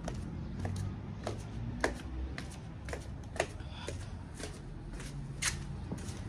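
Footsteps of slippers slapping on concrete stairs while walking down, about two steps a second, over a low rumble of handling noise.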